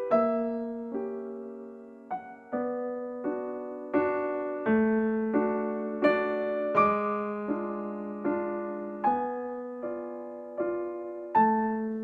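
Background piano music: a slow, gentle run of chords and notes, each struck and left to fade, changing about once a second.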